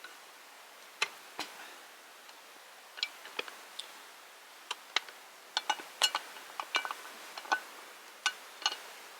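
Wood campfire crackling: irregular sharp pops and snaps from the burning logs, coming more often in the second half, over a faint steady hiss.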